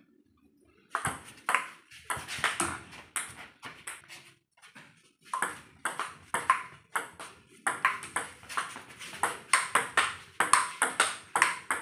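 Table tennis ball clicking off the table and the rubber-faced paddles in a quick back-and-forth rally, starting about a second in, with a short break near the middle before the hitting resumes.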